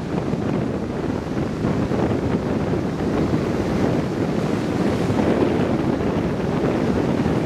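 Heavy storm surf breaking and washing ashore in a steady rushing roar, with strong wind buffeting the microphone.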